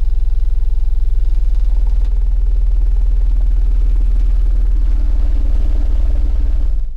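Car-audio subwoofers playing a very loud, steady deep-bass test tone at about 20 Hz, which stops abruptly near the end.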